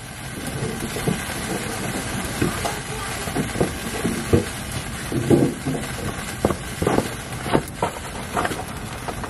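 Commotion around a fire in a pickup truck's engine bay: a steady hiss with irregular knocks and clatter and bursts of raised voices.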